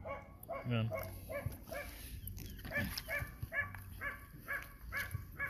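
A dog yapping over and over in short, quick, high barks, falling into an even run of about three a second in the second half.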